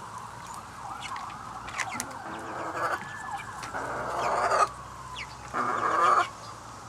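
Backyard chickens calling: a steady stream of high-pitched peeping and trilling calls that rise and fall gently in pitch, with two louder spells of calls about four and six seconds in.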